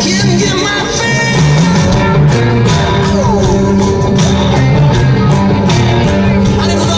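Live rock band playing loudly through a festival PA, a heavy moving bass line under electric guitar, recorded from within the crowd.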